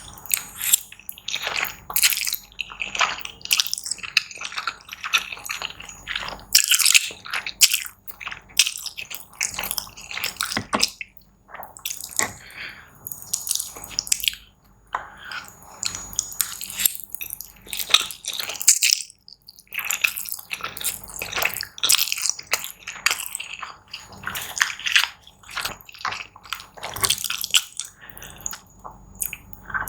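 Close-miked eating: wet chewing and slurping mouth sounds, a dense run of irregular smacks and clicks.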